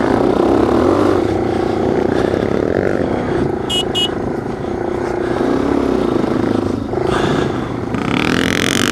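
ATV engine running steadily under load while riding across soft sand, heard close up from the machine, its pitch rising and falling a little with the throttle. Two short high-pitched chirps come about halfway through, and a burst of hiss near the end.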